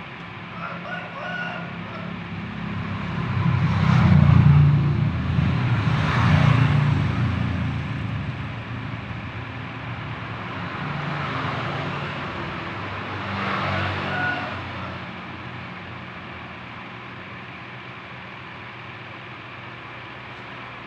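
Road vehicles passing by, several swelling up and fading away, loudest about four and six seconds in. A few faint short high notes sound near the start and again near fourteen seconds.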